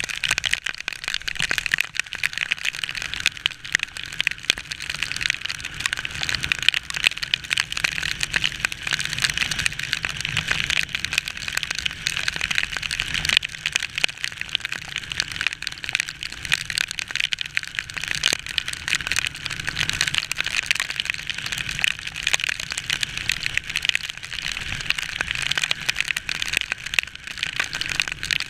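Rain and wind striking a camera carried on a moving motorcycle: a dense, steady crackle with a low rumble underneath.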